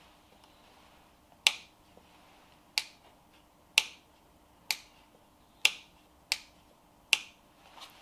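A 12V two-way light switch on a switch panel being clicked on and off seven times, a sharp click each time, testing the newly wired circuit that switches the puck lights.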